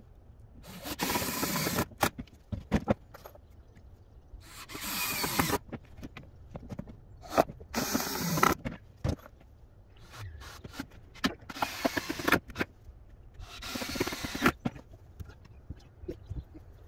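Power drill driving screws into lumber in five short runs of about a second each, with sharp knocks and clatter of boards being handled between them.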